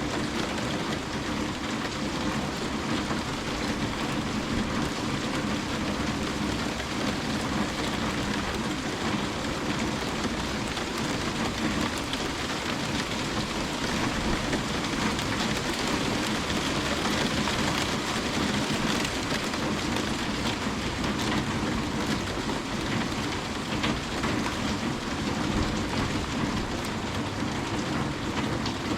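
Steady rain falling, with many small drop ticks throughout and no change in strength.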